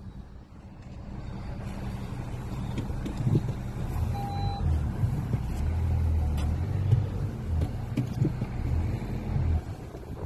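Car engine and road rumble heard from inside the cabin while driving, swelling in the middle and easing near the end. A single short beep sounds about four seconds in.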